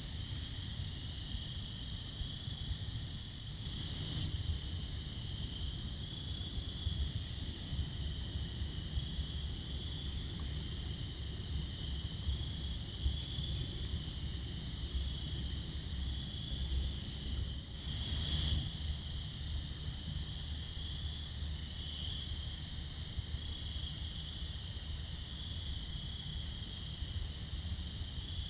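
Steady night chorus of crickets: a continuous high trill with a fainter pulsing trill just below it, over a low rumble.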